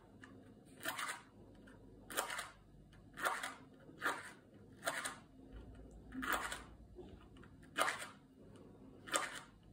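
A safety match struck again and again along the striking strip of a matchbox: about eight short scratches roughly a second apart, and the match fails to catch each time.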